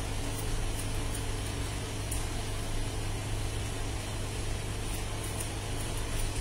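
A steady low hum with an even hiss, and over it a few faint, sharp snips of hairdressing scissors cutting hair, several close together about five seconds in.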